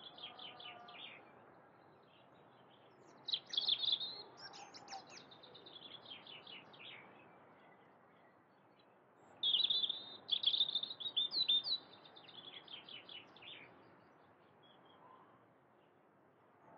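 Small songbird singing in quick runs of high chirping notes, in two main phrases, one about three seconds in and a longer one from about nine to thirteen seconds in, with quieter gaps between them.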